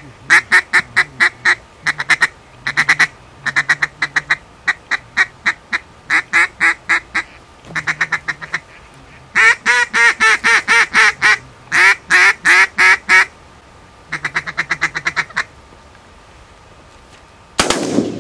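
Mouth-blown duck call sounding loud series of quacks, several a second in runs of about five to ten, to lure ducks in. Near the end a shotgun fires once.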